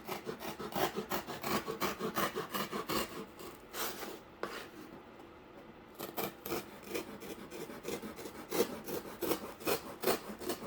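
Cardboard being cut with a blade in quick back-and-forth sawing strokes, about three or four a second, with a pause of about two seconds a little before the middle.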